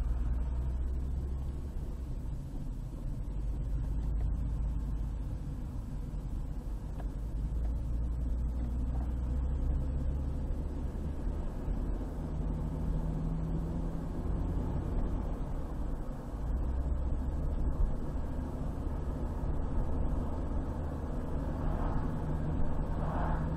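A car driving on a highway: steady low rumble of road and engine noise that swells and eases slightly without a break.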